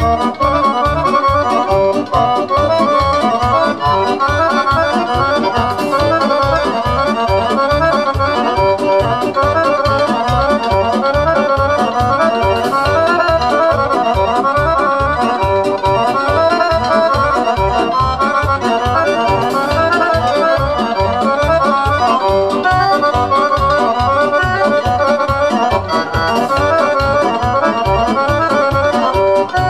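Traditional Romanian folk dance music for a circle dance (joc): a quick, busy melody over a fast, steady bass beat.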